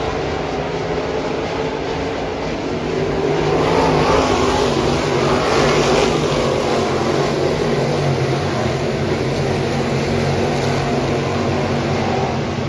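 Crate late model dirt-track race cars' V8 engines running at racing speed as the field laps the track, swelling louder from about three to seven seconds in as the cars pass closer.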